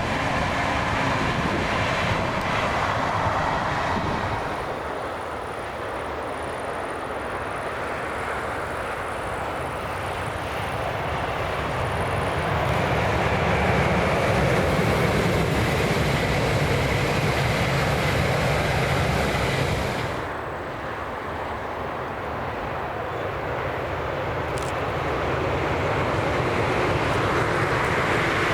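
Train running past, a steady rumble that swells and eases, with a sudden change about two-thirds of the way through to a fainter rumble that builds again.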